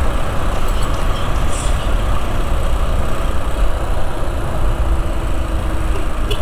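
Single-cylinder motorcycle engine running while riding, with heavy wind rumble on the microphone.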